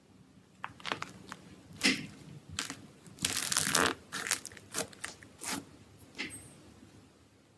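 Slime being squished and pressed by hand, giving an irregular run of crunchy crackles and pops, densest about three seconds in and thinning out toward the end.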